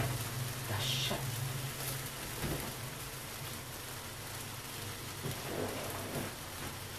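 Noodles sizzling steadily in a frying pan on a gas hob as they are stirred and tossed. A sharp knock sounds right at the start, and a low hum runs through the first couple of seconds.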